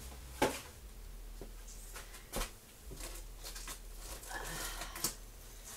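Scattered light knocks and clicks, with a brief rustle about four seconds in, from groceries and their packaging being handled and unpacked.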